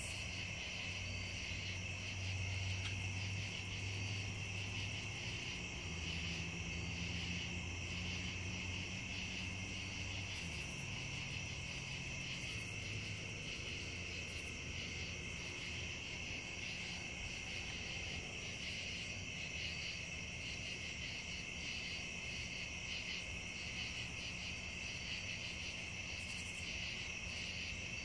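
Steady chorus of night insects such as crickets, a continuous high trill with a second, higher band above it. Under it a faint low hum shifts in pitch during the first ten seconds.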